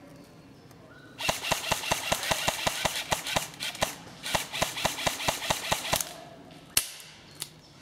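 Airsoft rifle firing on full auto: two long bursts of rapid, evenly spaced shots with a short break between them, then a single sharp click near the end.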